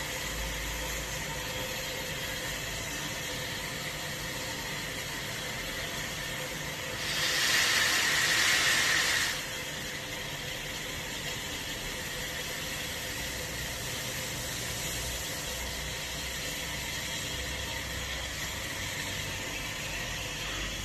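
Steam locomotive moving slowly through the station with a steady hiss, and a louder burst of steam, lasting about two seconds, beginning about seven seconds in.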